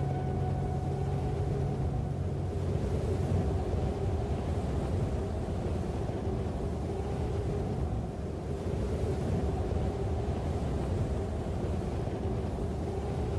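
Steady rushing wind noise with a deep rumble and a faint held tone beneath it.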